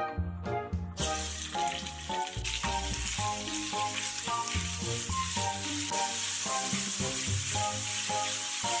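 Minced pork sizzling in hot oil in a cast-iron pan, starting suddenly about a second in as the meat goes into the oil, then sizzling steadily as it is stir-fried.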